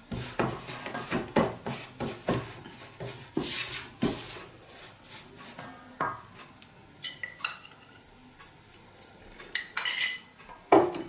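Silicone spatula scraping and knocking against a stainless steel mixing bowl, stirring flour and liquid into dough in quick, irregular strokes. The strokes thin out for a couple of seconds, then a few louder knocks come about ten seconds in.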